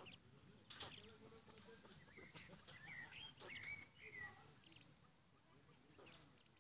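Faint soft chirping calls from domestic quail cocks, several short curving notes in a row around the middle. A single sharp click about a second in is the loudest sound.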